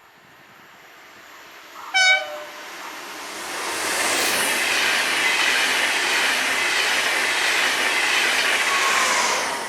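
Train sounding a short horn blast about two seconds in, then passing close at speed with loud wheel and rail noise that builds, holds, and falls away near the end.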